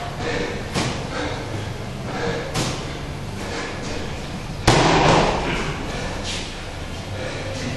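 20-pound medicine ball (wall ball) knocking against a plywood wall on a couple of throws, then dropped and hitting the concrete floor with one loud slam about two-thirds of the way in, which rings briefly in the big room.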